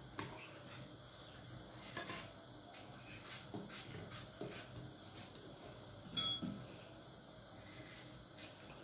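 Kitchen knife cutting an apple into small cubes by hand over a bowl, with faint, irregular clicks and taps of the blade and cubes dropping into the batter. One louder ringing clink about six seconds in.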